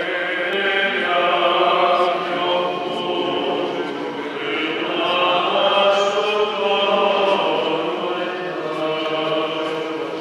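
Church choir singing liturgical chant, several voices together holding long notes.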